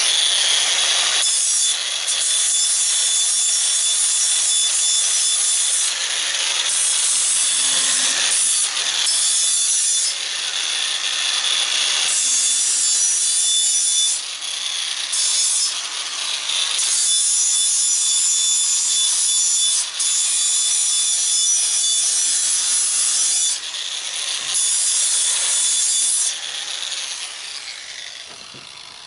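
Electric angle grinder running with an abrasive disc against the steel of a 20 lb propane tank, a steady high whine under a harsh grinding hiss. The disc is lifted off briefly every few seconds, and the grinder winds down near the end.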